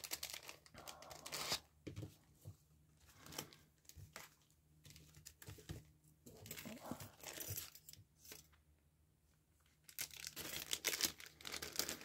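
Clear plastic bags crinkling and rustling as hands open them and pull tools out. The sound comes in scattered crackly bursts, busiest at the start and again near the end, with a short quiet pause just before the end.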